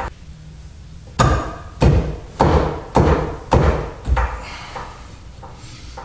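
Berkeley jet pump impeller being struck by hand to seat it on its shaft: a string of thumps about every half second, each with a short metallic ring, growing weaker near the end.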